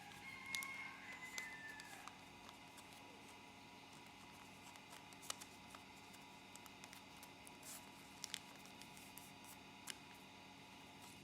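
Quiet room with scattered soft clicks and rustles of paper being handled and folded. A rooster crows faintly in the first two seconds.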